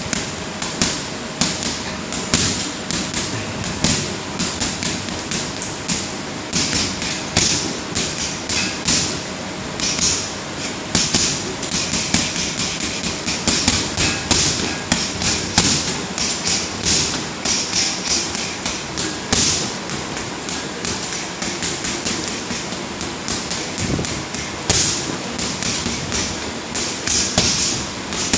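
Boxing gloves hitting a floor-to-ceiling ball in quick flurries of punches, several strikes a second, the ball slapping back and forth on its cord.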